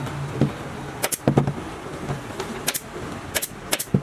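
A series of about seven sharp clicks at irregular intervals, some in quick pairs, over a low steady hum.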